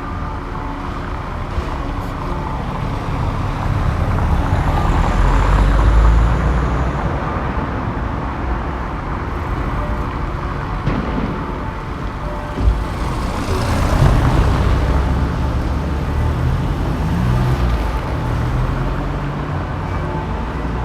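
Small-town street traffic: a steady rumble of engines and tyres, with two vehicles passing close by, one about a quarter of the way in and one about two thirds through. A single sharp knock comes shortly before the second pass.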